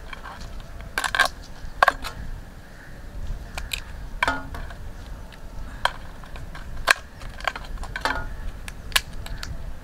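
A kitchen knife knocking and scraping against a small metal pot as mud crab pieces are cut and handled in it: irregular sharp clicks and clinks, some with a brief metallic ring, the loudest about two seconds in and near seven seconds.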